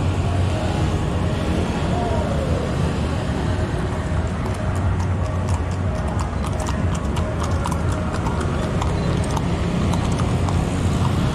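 Horses' hooves clip-clopping on the asphalt as horse-drawn passenger carts trot past, the clatter clearest from about four seconds in until near the end, over a steady low rumble.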